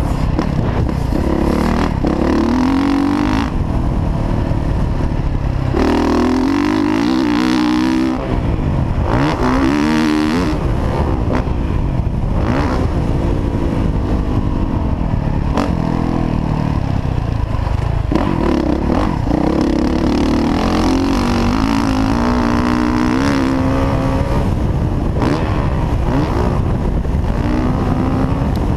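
Motocross dirt bike engine revving up and falling back again and again as the rider accelerates, shifts and rolls off between track sections. A steady rushing noise runs underneath.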